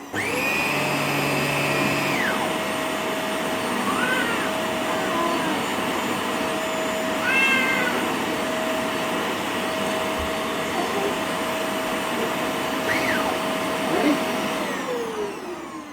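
Vacuum cleaner running steadily with a motor whine, then switched off near the end, its motor winding down. A few brief high-pitched cries sound over it.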